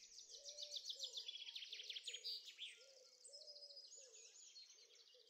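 Faint birdsong chorus: many quick high chirps and trills, with a lower short call repeated underneath, fading out toward the end.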